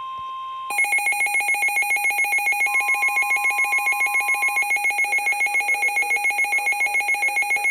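NOAA Weather Radio's steady warning alarm tone, then, under a second in, a Midland WR-400/WR-300 weather alert radio's own alarm starts: a loud, fast electronic beeping at about six pulses a second. It signals an incoming Severe Thunderstorm Warning.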